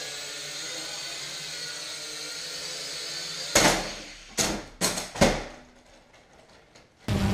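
A small quadcopter drone's motors and propellers whirring steadily. About three and a half seconds in it crashes: a loud knock, then three more sharp knocks and clatters as it hits and drops, after which its motors no longer run. Near the end another steady motor buzz cuts in abruptly.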